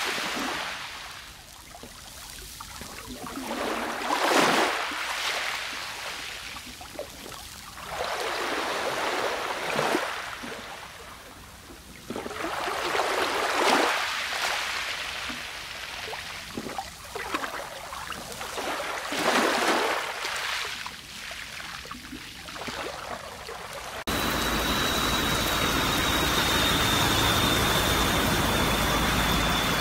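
Sea waves breaking and washing in, the rush of water swelling and fading every few seconds. About 24 seconds in, it cuts abruptly to a steady, even hiss with a faint high whine.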